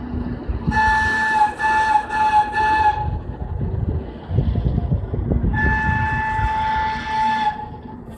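Train horn sounding four short blasts in the first three seconds and then one long blast about six seconds in. A low rumble of a passing train runs between the blasts.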